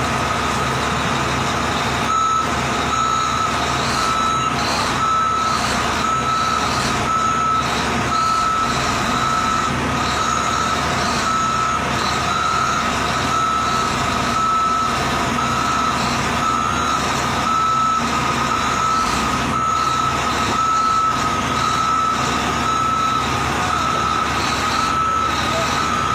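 Reversing alarm beeping steadily about once a second over a running engine, as a motor grader backs down a landing-craft ramp.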